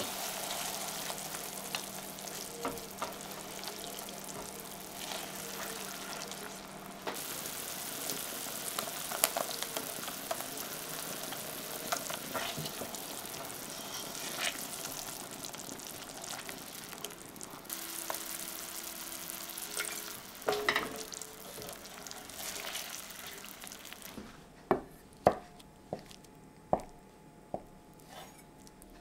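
Thick sauce sizzling and bubbling as it reduces in a small saucepan, with a silicone spatula stirring and scraping the pan. Near the end the sizzle stops and a knife cuts through a block of tofu, tapping on a wooden chopping board about six times.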